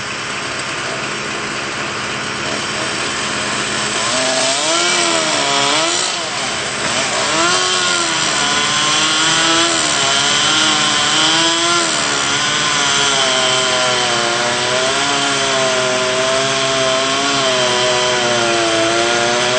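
Chainsaw cutting through dead pine, its engine pitch rising and falling as the cut loads it and frees it, starting about four seconds in. Underneath runs the steady hum of the bucket truck's idling engine.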